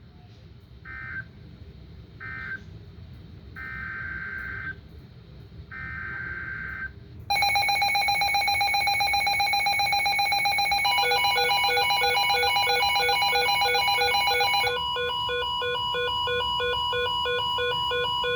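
Emergency alert tones ahead of a severe thunderstorm warning. First come four short buzzing data bursts. About seven seconds in, a much louder electronic alarm of steady and pulsing beeping tones takes over, changing to a faster repeating beep pattern near the end.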